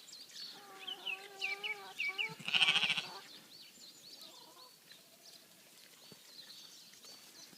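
Hebridean sheep bleating: one long wavering bleat, then a shorter, louder bleat about two and a half seconds in, and a faint one later. Small birds sing throughout.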